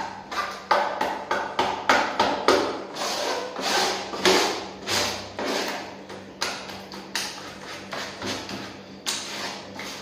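White cement being mixed by hand in a shallow tray: irregular scrapes and pats of the hand through the mix and against the tray, about one to three strokes a second.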